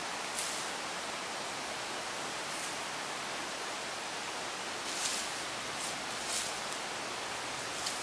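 Steady outdoor hiss with a handful of brief, high, sharp sounds scattered through it.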